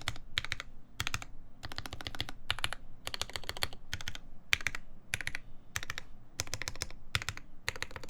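Mechanical keyboard with lubed Everglide Tourmaline Blue v2.5 switches, a polycarbonate plate and GMK keycaps being typed on in short bursts of keystrokes with brief pauses; the typing stops near the end.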